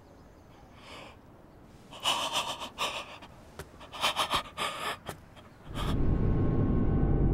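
An older man's voice gasping and panting in short, ragged breaths, in two clusters. Near the end a loud, low, steady hum sets in.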